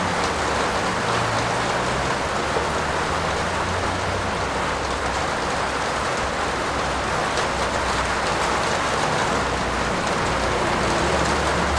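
Heavy rain falling in a steady, even hiss, with a low rumble underneath.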